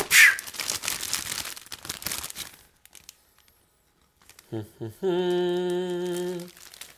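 Plastic zip-top bag crinkling as it is shaken open and handled for the first couple of seconds. After a short quiet spell, a man hums one steady note for about a second and a half near the end.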